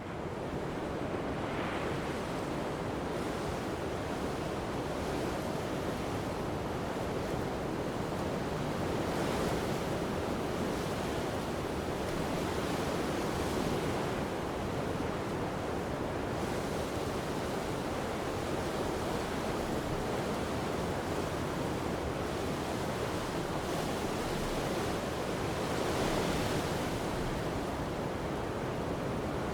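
Strong gusty wind blowing along a coast with waves breaking, a steady rushing noise that swells now and then.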